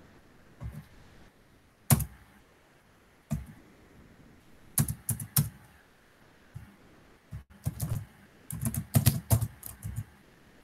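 Typing on a computer keyboard: scattered single keystrokes with pauses between them, then a quicker run of keys in the last few seconds.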